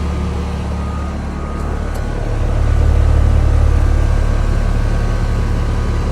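Central air conditioning system running: a steady low machine hum with a few fixed tones, louder from about two and a half seconds in. The technician reads its pressures as way too high, almost as if it were overcharged.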